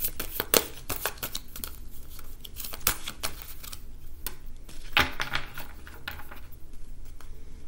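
A deck of oracle cards shuffled by hand over a wooden table: a quick run of card clicks and rustles for the first few seconds, thinning to a few separate taps. Then a card is drawn and set down on the table, about five seconds in.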